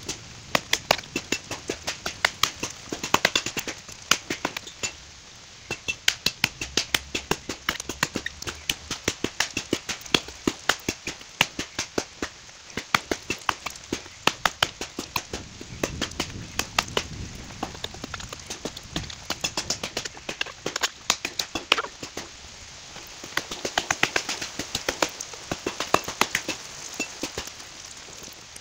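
Tramontina machete chopping into a standing tree trunk to cut a felling notch: a rapid run of sharp blade strikes into wood, several a second, with a few short pauses.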